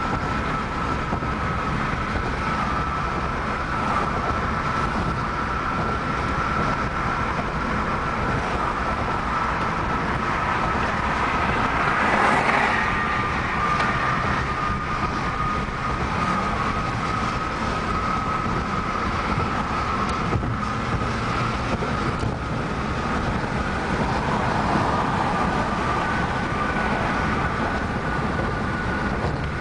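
Steady road and wind noise of a car driving on a concrete bridge deck, heard from inside the car, with a thin high whine running through it that drifts slightly in pitch. Briefly louder about twelve seconds in as another car passes alongside.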